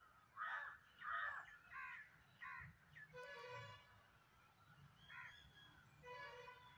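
Birds calling: four short harsh calls in quick succession, then a longer, clearer call with a steady pitch, another short call, and a second long call near the end.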